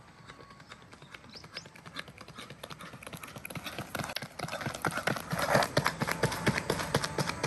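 Rapid running footfalls of sprinters on an athletics track, a quick train of sharp slaps that grows steadily louder as the runners come closer.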